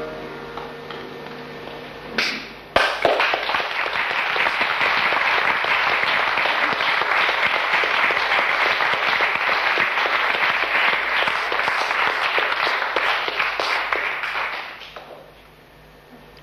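Audience applauding: a sharp bang or two about two seconds in, then dense clapping that holds steady and dies away near the end.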